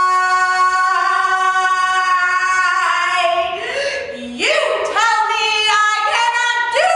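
A woman singing: one long high note held steady for about three seconds, then a string of short notes, each sliding up in pitch.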